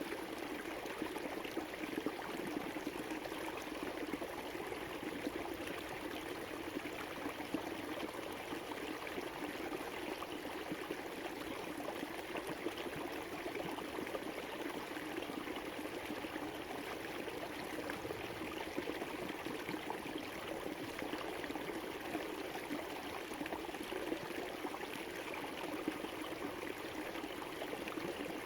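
River water flowing over rocks in a steady rush with small splashes and gurgles, unchanging throughout.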